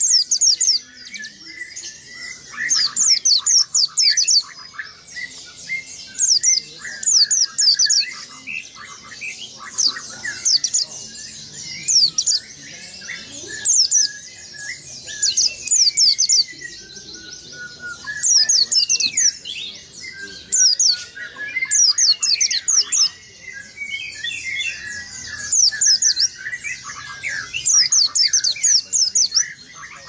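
White-eye (pleci) singing its continuous rolling 'ngerol' song: quick runs of high, thin falling notes, repeated every second or two over lower twittering chirps.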